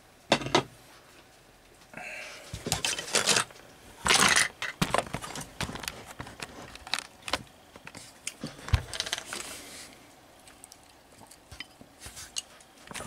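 Scattered clinks and knocks of a plate and utensils being handled on a desk, with a few short scraping or rustling noises in the first half and a dull knock near the end.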